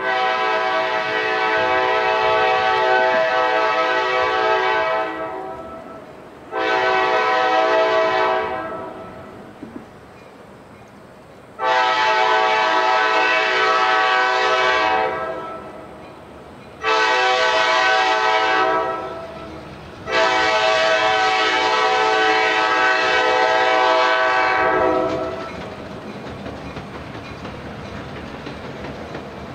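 Horn of a Kansas City Southern EMD F-unit diesel locomotive sounding five loud blasts in a long, short, long, short, long pattern as the train approaches. After the last blast the low rumble of the locomotive and train grows.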